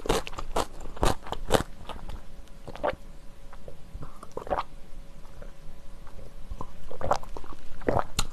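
Close-miked chewing and crunching of a mouthful of jajangmyeon noodles and kimchi, with sharp wet mouth clicks, crowded in the first second and a half and again near the end, sparser in the middle during a drink from a mug.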